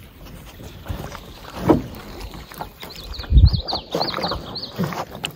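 Canoe paddling: water sloshing and splashing from paddle strokes, with a few low knocks against the hull, the loudest about three and a half seconds in. A bird sings a quick repeated chirping phrase in the background midway through.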